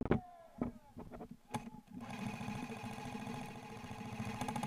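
Airsoft electric gun (AEG) firing a long full-auto burst of close to three seconds, starting about two seconds in: a fast, even mechanical buzz from the gearbox cycling. A sharp knock comes right at the start, with a lighter one about a second and a half in.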